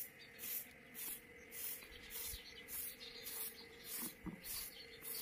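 Grass broom sweeping a concrete floor: a steady rhythm of dry swishes, about two and a half strokes a second.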